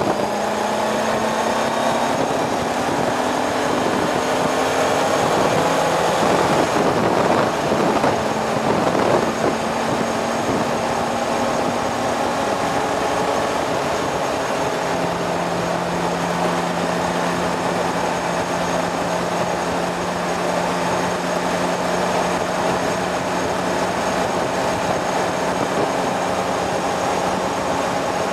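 Motorcycle engine running steadily at road speed under a constant rush of wind noise. The engine note climbs a little over the first few seconds, then holds. The rush grows louder for a couple of seconds about seven seconds in.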